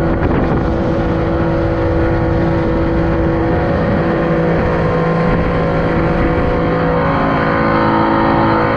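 Motorboat engine running steadily while the boat is underway, with a constant rush of water and wind.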